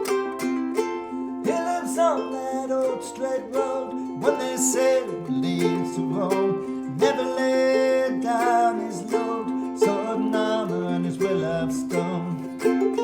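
Ukulele played clawhammer style, a steady run of plucked and brushed notes, with a voice singing a verse over it from about a second and a half in.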